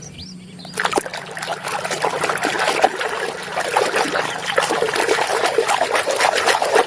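Water running and splashing over a toy vehicle being rinsed clean of mud. It starts about a second in.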